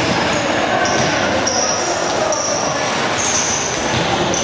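Floorball game play on a sports-hall court: players' shoes squeaking sharply on the floor many times in quick succession, over a steady din of play.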